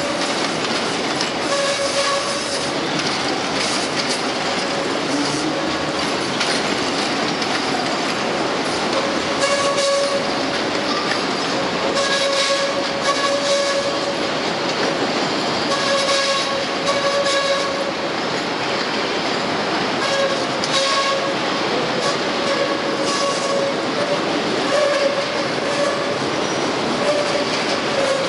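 Morrison-Knudsen 3200-series "L" rapid-transit cars rolling slowly through the tight curves and switches of an elevated junction. Their steel wheels squeal on the curves, the squeal coming and going over and over, above a steady clatter of wheels over the switch points and rail joints.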